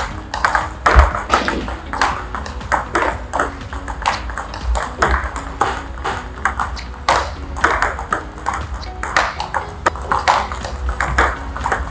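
Table tennis rally: the ball ticks in a quick, steady rhythm, a few times each second, off the table and off the rackets. On one side it meets forehand blocks from a long-pimpled rubber, and on the other the partner's drives.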